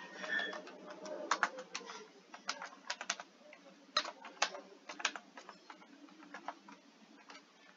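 Typing on a computer keyboard: irregular keystroke clicks, some in quick runs and some as single taps, thinning out towards the end.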